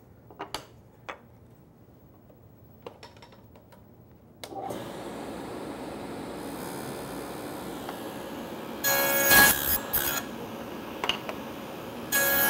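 A few light clicks of wood pieces being handled, then a table saw switched on about four and a half seconds in and running steadily. Its blade cuts into a board end twice, once about nine seconds in and again near the end, cutting a tenon cheek.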